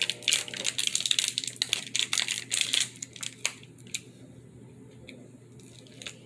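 Foil wrapper of a Pokémon card booster pack being torn open and crinkled by hand, dense crackling for about three seconds, then a few faint clicks and rustles.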